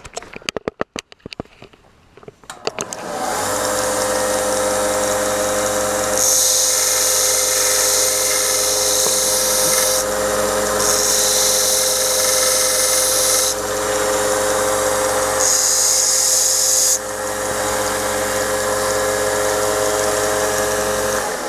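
A small power tool starts about three seconds in, after a few clicks, and runs steadily. Three times it gives a stretch of hissing grind as it cuts the metal hinge pin to length.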